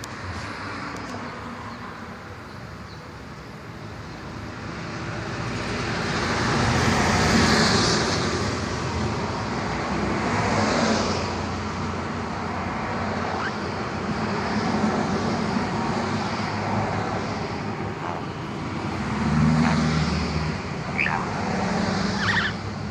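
Road traffic noise: a steady rumble that swells as vehicles pass, loudest about seven seconds in and again near twenty seconds. A few short sharp sounds come near the end.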